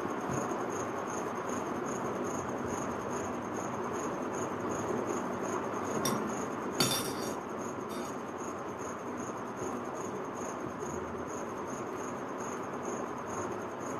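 A metal fork clinks against a steel plate, with one sharp clink about seven seconds in and fainter taps just before and after. Behind it runs steady room noise with a faint, high, rapidly pulsing tone.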